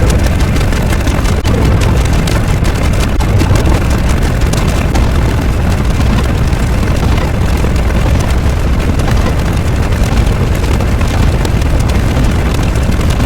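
A loud, steady, low rumbling noise that runs without a break or change.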